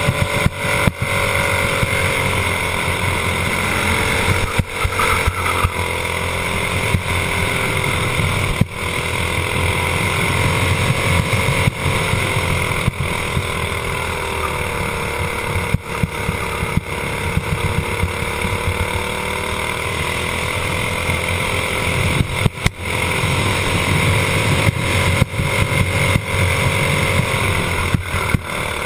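Racing kart engine running at speed, heard from the kart itself, its pitch rising and falling gently as the kart goes through the corners, with a few brief drops in level along the way.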